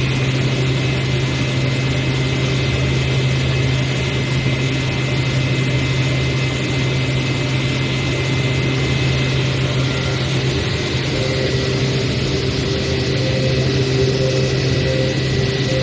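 CNC cutting machine running steadily: a constant low hum with a thin high whine over a noisy mechanical hiss, and a mid-pitched tone that comes and goes in the second half.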